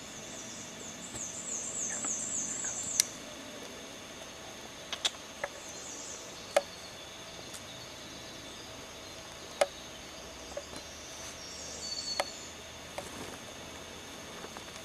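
Quiet woodland with a small bird singing quick, very high-pitched trills three times, at the start, around six seconds in and again near twelve seconds, and about half a dozen sharp single snaps or clicks scattered through it.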